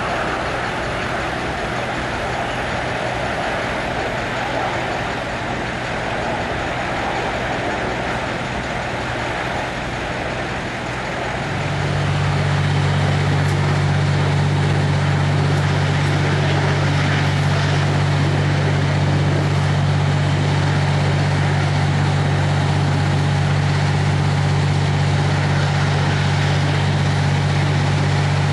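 Continuous roar of a ruptured natural-gas main burning, mixed with the running engines of fire apparatus. About twelve seconds in, the sound grows louder and a deep steady hum comes in and holds.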